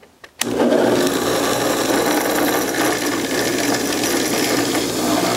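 Drill press running steadily as its Forstner bit bores a hole into a wooden board. The sound starts suddenly, with a click, about half a second in.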